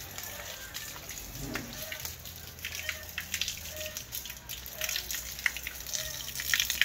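Water spraying from a garden hose and splattering onto wet paving, with scattered sharp ticks.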